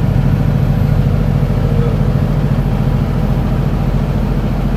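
Semi truck's diesel engine running steadily at highway cruise, a constant low drone heard from inside the cab, with road noise.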